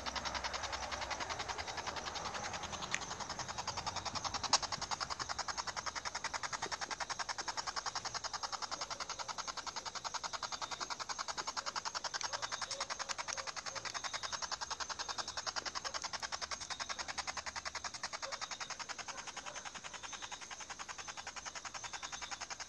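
Spirit box, a radio sweeping rapidly through stations, running: static chopped into fast, even pulses, with one sharper click about four and a half seconds in.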